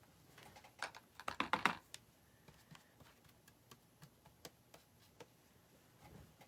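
A quick run of light taps and clicks about a second in, then scattered faint ticks: a flat paintbrush dabbing paint onto a canvas.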